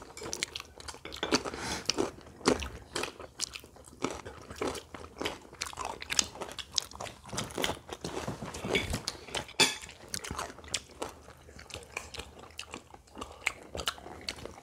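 Close-up chewing and crunching of fried Korean street-food snacks (twigim), with irregular crisp crunches and bites.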